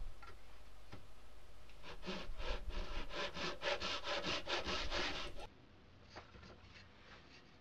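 Japanese hand saw crosscutting a pine board: light strokes at first, then quick, even rasping strokes about four or five a second. About five seconds in the sawing cuts off abruptly, leaving near silence.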